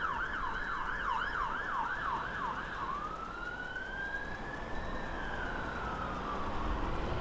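Ambulance siren on a fast yelp, about two to three warbles a second. About three seconds in it switches to a slow wail that rises and then falls away.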